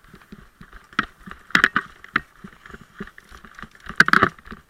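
Running footsteps on rough ground, about four a second, with several sharper knocks and clatters, the loudest cluster near the end.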